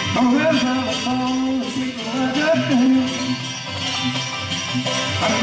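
Live old-time string band playing a fast tune, clawhammer banjo in front with guitar, and a man singing at the microphone.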